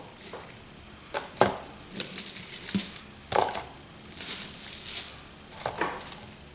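Scattered light clinks, knocks and rustles of scrap copper windings being handled and set on a scale for weighing.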